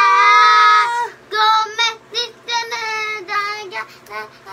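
Singing in a high voice: one long held note about the first second, then a string of short sung phrases.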